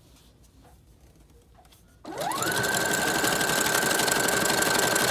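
Brother electric sewing machine starting up about two seconds in. Its motor whine rises quickly to a steady high pitch, and the needle chatters rapidly as it runs fast, stitching hair wefts. Before it starts there are only a few faint handling clicks.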